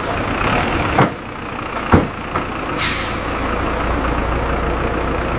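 Bus engine running steadily with a low rumble. There are two short knocks about one and two seconds in, and a sharp air-brake hiss about three seconds in.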